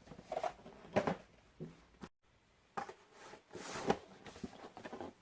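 Boxed toy figures being handled and lifted out of a cardboard shipping box: soft rustles, scrapes and light knocks of cardboard packaging, busiest about three to four seconds in.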